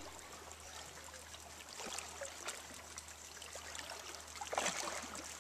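Sea water lapping and trickling faintly, small splashes and drips, with a louder slosh about four and a half seconds in.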